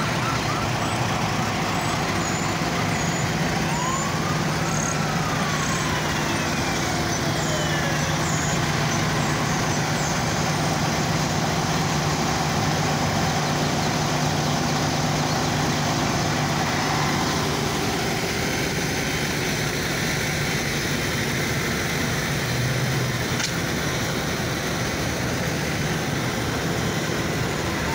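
Idling diesel engines of fire trucks, a steady hum mixed with road traffic noise. About four to eight seconds in, a single tone rises and then falls away.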